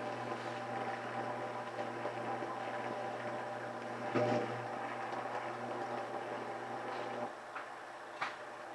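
A steady mechanical hum made of several tones, which cuts off about seven seconds in; a short knock about four seconds in and a sharp click near the end.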